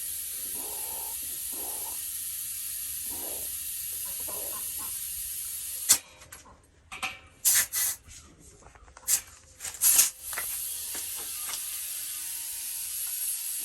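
Compressed air hissing steadily at the air valve of a well pressure tank while its charge is set to 28 psi. The hiss stops for a few seconds with several sharp clicks and knocks, then starts again.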